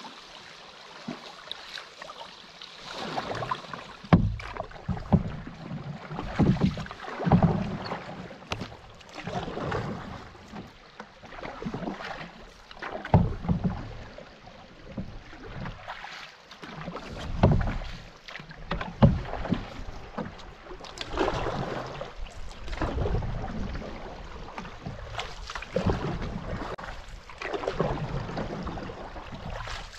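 Canoe paddle strokes pulling hard through fast river current, a stroke every second or two over the steady rush of water.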